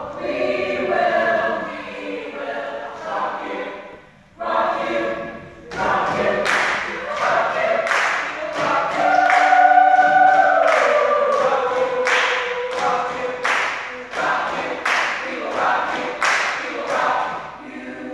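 Vocal group singing together in harmony without instruments, with a sharp percussive beat about twice a second joining about six seconds in.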